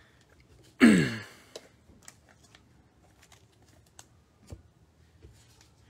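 Trading cards being handled and stacked on a table, giving scattered light taps and clicks. About a second in comes one brief, loud sound that falls in pitch.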